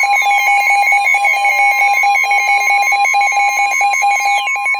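NOAA Weather Radio warning alarm: a steady high alert tone heard together with a rapidly pulsing beep and several slow falling sweeps, the alert that comes before a broadcast warning.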